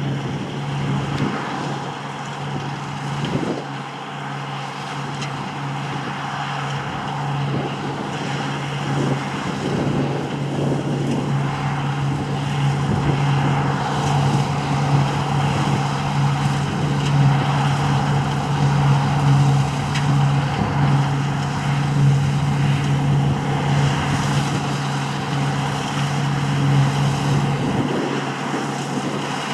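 Deutz-Fahr harvest machinery (combine harvester and tractor) running steadily at working revs: a constant low engine hum over broad mechanical noise.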